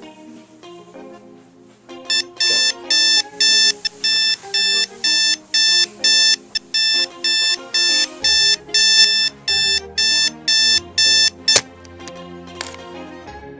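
Digital alarm clock beeping in a steady, rapid pulse, about two beeps a second, over soft background music. The beeping cuts off suddenly with a click near the end, as the alarm is switched off.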